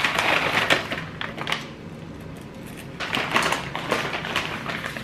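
Paper bag rustling as seeds are shaken out of it into a bowl, then a second seed packet crinkling as it is handled about three seconds in.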